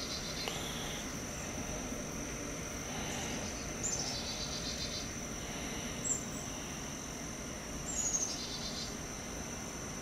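Insects droning in a steady high-pitched tone, with a bird calling: a short falling note followed by a rapid trill, twice, and a single short note in between.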